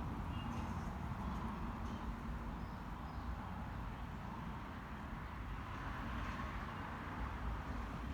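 Steady outdoor background rumble, with a few faint short high chirps in the first few seconds.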